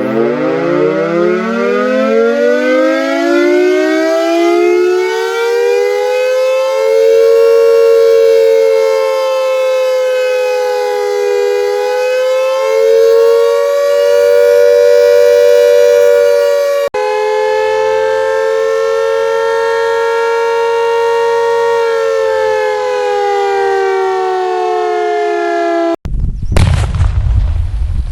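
Air-raid siren winding up from a low pitch to a steady high wail over about six seconds. It holds there with its pitch wavering slightly and a brief break about two-thirds of the way in, then sags gently lower. Near the end it cuts off abruptly to a couple of seconds of noisy low rumble.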